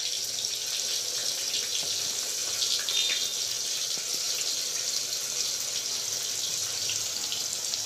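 Sliced onions sizzling in hot oil in a pressure cooker as they are dropped in by the handful: a steady hiss with many small crackles.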